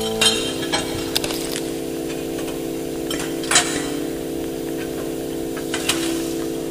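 Experimental electronic drone music: a steady chord of held tones that shifts to a new chord a fraction of a second in, with a few scattered sharp clicks over it.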